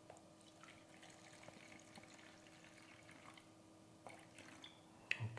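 Milky acrylic primer poured in a thin stream from a glass jug into a plastic measuring jug, a faint trickle. A brief, louder sound comes near the end.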